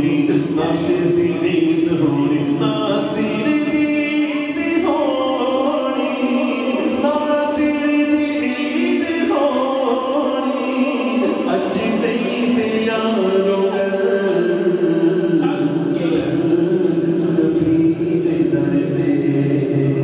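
A man singing a naat, an Islamic devotional song in Punjabi, into a microphone, drawing out long wavering held notes.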